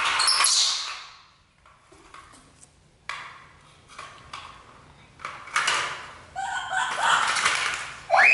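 Wired remote-control toy car's small electric motor whirring in short spurts as it drives on a tile floor, with scattered clicks in the pauses between.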